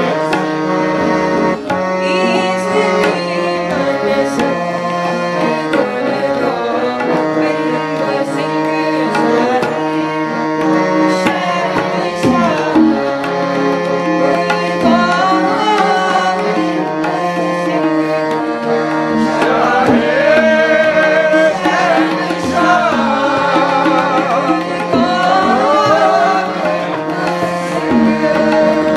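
Sikh kirtan: a woman's voice sings a devotional hymn over sustained harmonium notes and a steady tabla rhythm. The voice is most prominent in the second half.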